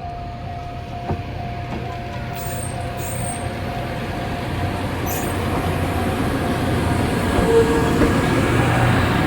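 Level crossing warning bell ringing in a steady repeating tone while an approaching track-inspection train's rumble grows steadily louder.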